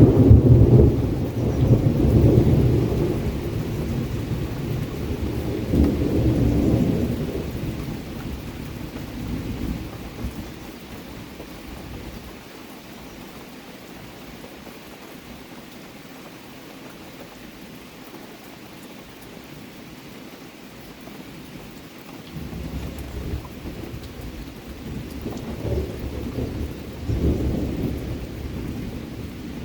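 Steady rain with rolling thunder: a long low rumble at the start dies away over about ten seconds, leaving only the hiss of the rain, and another rumble builds from about two-thirds of the way in.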